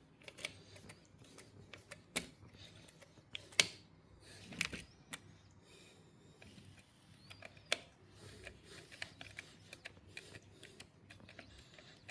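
Scattered small clicks, taps and scrapes of a Maco door lock mechanism and its fittings being refitted by hand, with a few sharper knocks.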